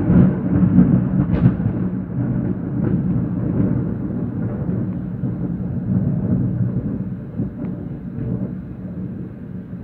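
Thunder rolling: a deep rumble, loudest in the first second or so, then slowly dying away.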